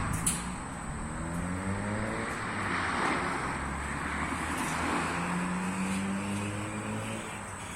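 Net washing machine running, its motor speeding up twice with a slowly rising pitch over a steady rushing noise.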